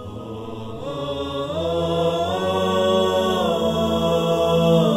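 Intro music: a slow, chant-like vocal melody of long held notes. It rises after about a second and a half and falls back about three and a half seconds in.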